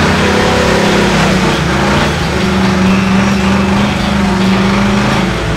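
Jeep Wrangler engine held at high revs while stuck in a mud pit, a steady revving note that dips briefly about two seconds in and falls away near the end.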